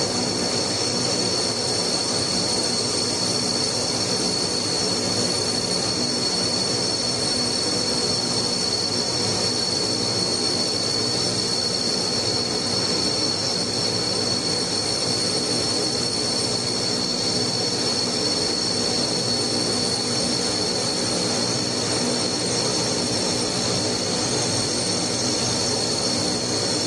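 The four turboprop engines of an Ilyushin Il-38 running as it taxis: a loud, steady, high-pitched whine over a broad rushing noise.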